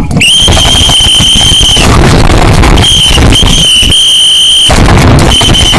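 Loud, distorted high-pitched squeal on one steady pitch. It is held for well over a second, returns twice, then breaks into short repeated pulses near the end.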